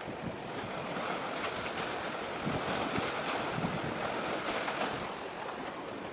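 Wind buffeting the microphone over a steady wash of sea waves.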